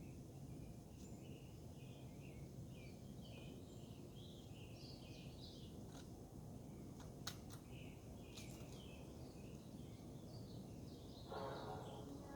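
A woodpecker knocking on wood, a few sharp taps in the middle, then a brief rattling roll near the end, over faint chirping of small songbirds.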